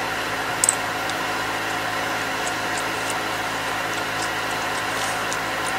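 A steady mechanical hum made of several fixed tones, with a faint click about a second in and a few fainter ticks later.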